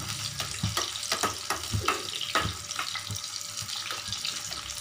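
Tomato pieces sizzling in hot ghee in a small pan while a metal ladle stirs them, with irregular clinks and scrapes of the ladle against the pan.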